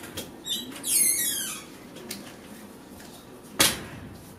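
Door hinges squealing as a barred storm door swings open: a short squeak, then a falling squeal lasting under a second. A single thud about three and a half seconds in as the door shuts.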